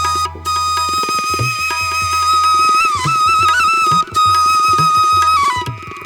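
Background music in an Indian style: a flute holds one long note over a tabla rhythm, with small bends in pitch about halfway through.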